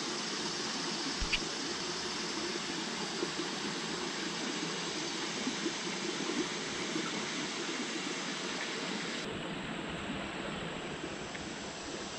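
Creek water running: a steady, even rush of flowing water.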